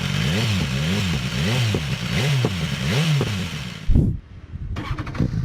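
BMW S1000R's inline-four engine blipped through its Akrapovic titanium slip-on exhaust: about six quick revs, each rising and falling about every half second. About four seconds in comes a sharp crack, and the engine sound drops out briefly.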